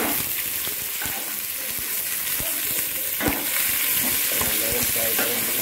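Sliced onions sizzling in hot oil with whole spices in an aluminium pot as they are tipped in and stirred with a metal spatula: a steady frying hiss with small scraping clicks, and one sharper knock a little over three seconds in.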